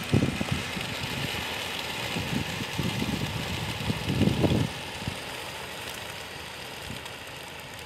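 A large flock of pigeons taking off together from a transport truck's crates, a dense flutter of wings that thins out after about five seconds, over a steady low rumble.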